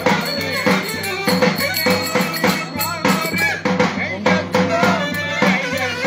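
Live Turkish folk dance tune (oyun havası) from a small band: a steady drum beat about twice a second under a melody instrument.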